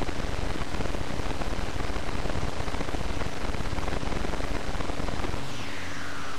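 A steady, even hiss like static, with a faint steady hum under it; about a second before the end, a thin tone starts and slowly falls in pitch.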